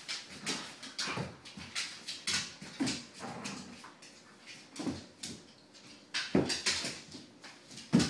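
An older dog and a big pit bull puppy play-fighting: an irregular run of short scuffling and dog vocal sounds, loudest near the end.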